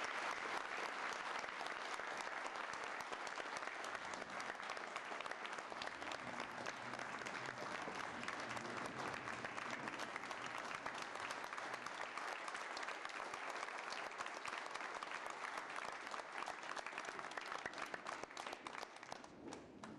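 Audience clapping steadily, loudest at the start and thinning out near the end.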